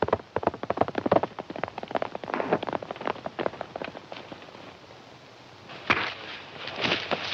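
Old film soundtrack of galloping hoofbeats mixed with gunshots: a rapid clatter of sharp impacts that thins out about four seconds in, then one sharp crack near the end followed by a rush of scuffling noise.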